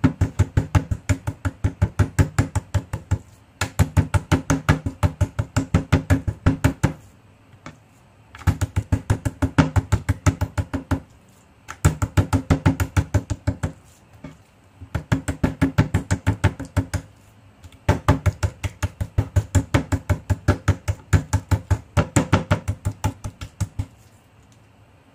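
Metal meat tenderizer mallet pounding raw pork chops on a wooden chopping board: rapid blows, about four or five a second, in runs of a few seconds with short pauses between.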